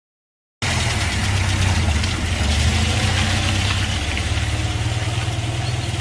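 An engine running steadily: a constant low hum with hiss, cutting in suddenly about half a second in after complete silence.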